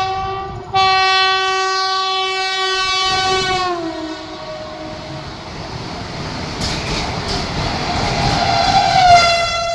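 Vande Bharat Express horn sounding on a two-note chord as the train passes at about 130 km/h, with a brief break near the start and a drop in pitch about four seconds in as the front cab goes by. The rushing rumble of the coaches going past follows, and near the end the rear cab's horn sounds and falls in pitch.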